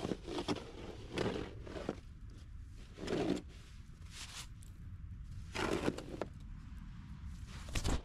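Snow shovel scraping along the pavement and pushing snow, in about seven irregular strokes, the loudest about three seconds in.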